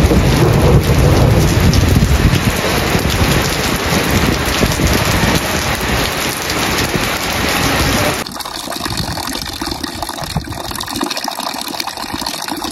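Heavy rain pouring down on a courtyard and roofs, a dense steady hiss with a low rumble in the first couple of seconds. About eight seconds in, the sound drops abruptly to a quieter, thinner background noise.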